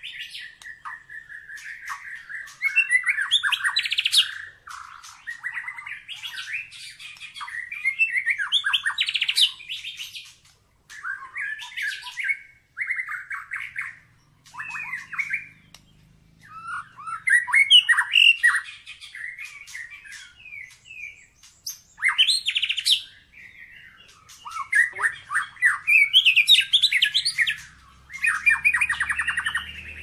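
White-rumped shama (murai batu) singing: bursts of varied whistles and chatter broken by short pauses, ending in a fast rattling trill.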